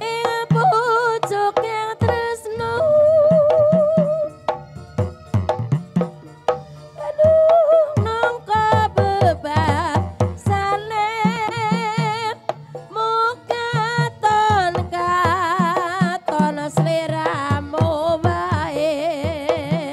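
Live Banyumasan gamelan music: wooden-keyed xylophones struck with mallets, hand-drum strokes and gongs, under a wavering sung melody with vibrato.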